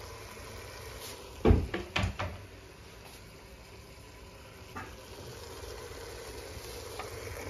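A few kitchen handling knocks and clunks. The loudest comes about one and a half seconds in, two lighter ones follow about half a second apart, and a faint one comes near five seconds, over a low steady background.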